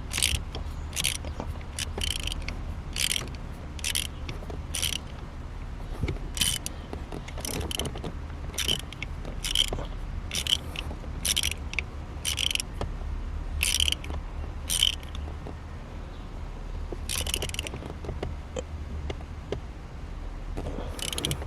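Ratchet wrench clicking in short bursts, about one a second, as it is swung back and forth tightening a shifter mounting bolt. The bursts thin out in the last third as the bolt comes tight.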